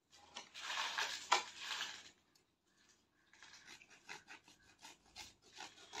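A knife sawing through a jute sack, the blade rasping on the coarse fibres: one long rough stretch of strokes over the first two seconds, then after a short pause a run of shorter, quicker strokes.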